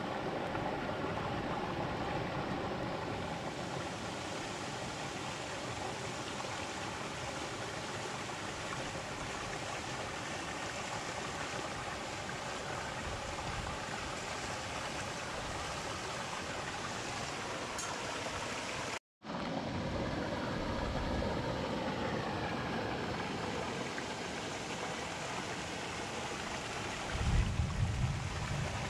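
Stream water rushing over rocks, a steady wash. It cuts out for an instant about two-thirds of the way through, and a few low bumps come near the end.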